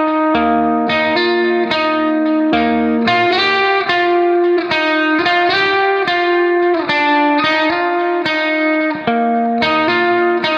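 Background music: a plucked guitar melody, a new note about every half second at a steady pace.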